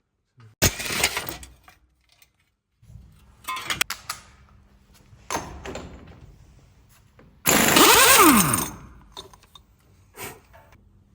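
Metal tools striking and clanking on a wheel hub during hub bearing work: a sharp strike about half a second in, a cluster of knocks near four seconds, and the loudest noisy burst, about a second long, near seven and a half seconds, with a falling tone inside it. A steady low hum starts about three seconds in.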